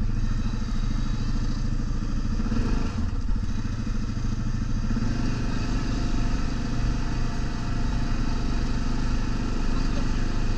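ATV engine running at fairly steady revs, with an even low pulsing throughout.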